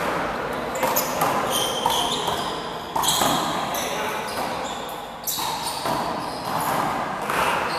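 Handball rally: a small rubber handball is slapped by hand and smacks off the wall and floor several times, echoing in a large hall, with sneakers moving on the court.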